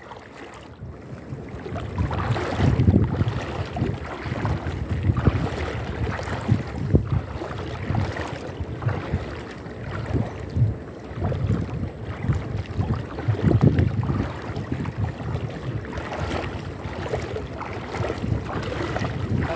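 Water sloshing and splashing around legs wading through thigh-deep water, in uneven surges with each stride, over a steady low rumble of wind on the microphone.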